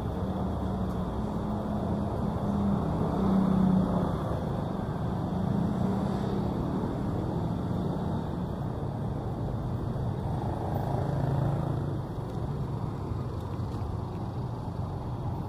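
Street traffic: car engines running in slow, queued traffic close by, a steady hum that swells louder about three seconds in and again around eleven seconds as vehicles move past.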